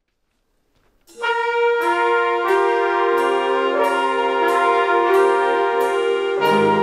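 Wind band playing a slow ballad opening that starts about a second in: sustained brass chords over a light percussion tick on each beat, about one and a half a second. Deeper low brass notes join near the end.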